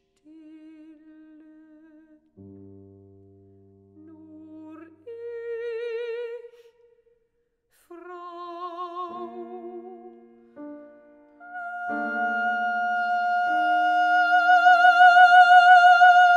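A mezzo-soprano sings a classical art song with piano accompaniment: vibrato-laden phrases over sustained piano chords, with a short pause about seven seconds in. From about twelve seconds she swells into a long, loud, held high note over the piano.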